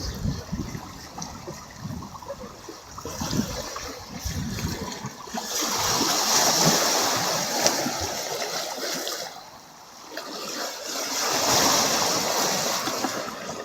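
Sea waves breaking and washing onto the shore, coming in two swells a few seconds apart, each several seconds long. A low, uneven rumble sounds under the first few seconds.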